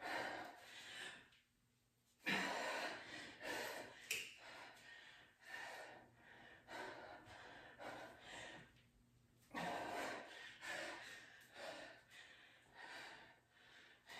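A woman breathing hard from exertion: short, repeated gasps and exhales, roughly one or two a second, with two brief pauses.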